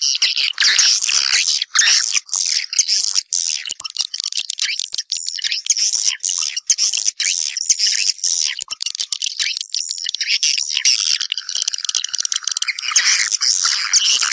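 Swiftlets twittering in a dense, continuous chorus of rapid high chirps. These are the nest calls used to draw swiftlets in to roost and build nests.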